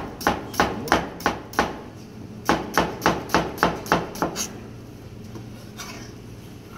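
Chef's knife slicing an onion on a plastic cutting board: two runs of quick, even chops, about three to four a second, with a short pause between them. The chopping stops about four and a half seconds in.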